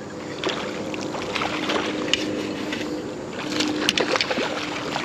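Water splashing and sloshing with scattered short clicks as a hooked smallmouth bass is fought at the surface, over a steady hum of nearby road and highway traffic.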